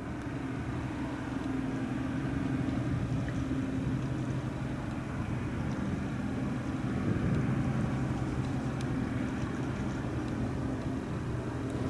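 Passenger ferry Daini Shodoshima Maru's engines giving a steady low drone with several held tones, over the rush of the hull through the water.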